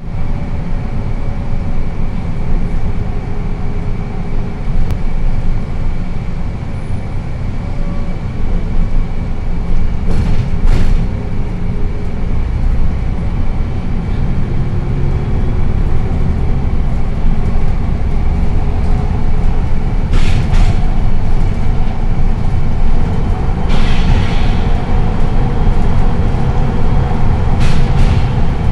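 Inside a moving Mercedes-Benz O405NH bus: steady engine and road rumble with a faint steady whine. There are a few brief sharp knocks and a short hiss about three quarters of the way through.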